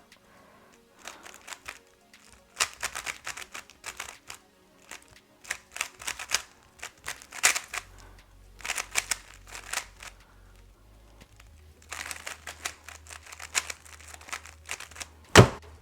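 Plastic 3x3 speed cube being turned fast, rattling out quick runs of clicking turns with short pauses between them. Near the end, a single sharp slap of hands on the stackmat timer stops the solve.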